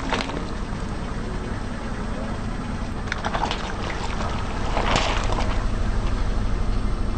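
Car tyre rolling over rubber gloves filled with water beads, squashing them with wet crackles and a louder splattering burst about five seconds in as the beads spill out, over the low steady rumble of the car.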